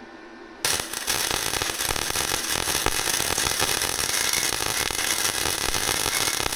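Flux-core wire-feed welder arc striking about half a second in, then crackling and sputtering steadily as a bead is run. The weld is throwing a lot of spatter.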